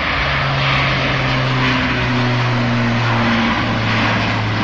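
Airbus A400M Atlas's four TP400 turboprop engines at high power as the aircraft flies low overhead: a loud, steady propeller drone with a low hum under a broad rushing noise.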